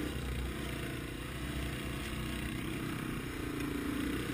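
Yamaha TW200's single-cylinder four-stroke engine running steadily at trail speed, heard from on the bike itself.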